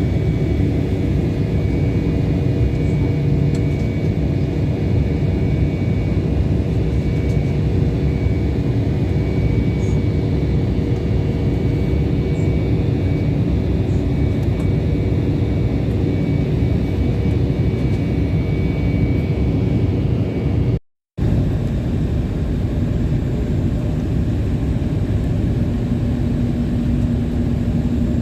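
Airliner cabin noise: the steady rush of engines and airflow with several constant hums. The sound drops out briefly about three-quarters of the way through, then carries on much the same.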